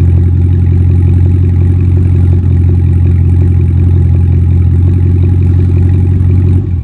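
2017 Camaro SS 1LE's 6.2-litre LT1 V8 idling steadily after a cold start, heard at the tailpipes through a Stainless Works cat-back exhaust. A deep, even idle that drops away at the very end.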